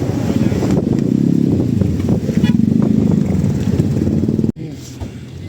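Motorcycle engine running close by, its pitch rising and falling, amid street crowd noise; it cuts off suddenly about four and a half seconds in, leaving fainter street noise.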